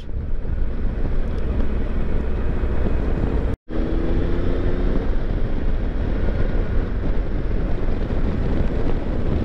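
Wind rushing over the microphone with the low rumble of a motorcycle riding at road speed. The sound cuts out for a split second about a third of the way in.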